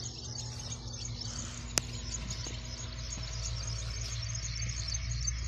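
Outdoor ambience: continuous faint high chirping over a steady low hum, with one sharp click a little under two seconds in.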